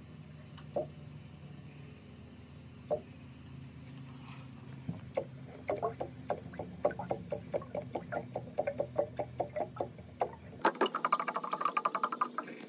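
Inverted water jug in a bucket chicken waterer glugging as air bubbles up into it and water runs out into the base: a few scattered pops at first, then a quickening run of glugs, dense near the end, over a steady low hum.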